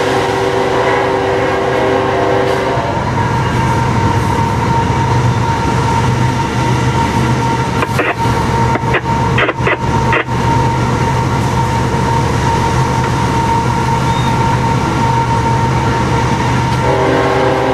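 Diesel locomotive cab noise under way: the engine runs steadily and the wheels roll on the rails, with a steady whine throughout. A few sharp knocks come about eight to ten seconds in.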